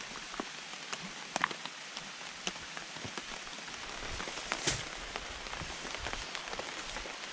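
Steady rain falling on a tarp shelter overhead, an even hiss with individual heavier drops ticking on the fabric now and then, one louder hit about four and a half seconds in.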